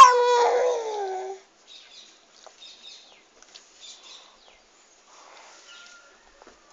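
A toddler's voice in one drawn-out call that falls in pitch and stops about a second and a half in, followed by faint, scattered bird chirps.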